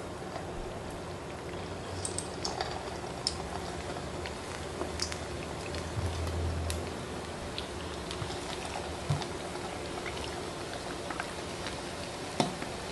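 Shrimp and fish balls deep frying in a small pot of hot oil: the oil bubbles steadily, with scattered sharp pops.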